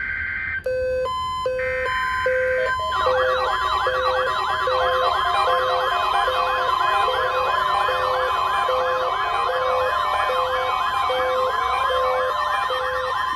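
NOAA Weather Radio weekly test alert. First comes the end of the SAME digital header: short screechy data bursts with intermittent beeps. From about three seconds in, the steady 1050 Hz warning alarm tone sounds, overlaid by weather-alert receivers going off: fast wailing siren tones and regular on-off beeps.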